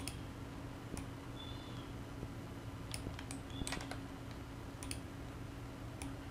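Scattered clicks of a computer mouse and keyboard, about seven in all at irregular intervals, over a steady low hum.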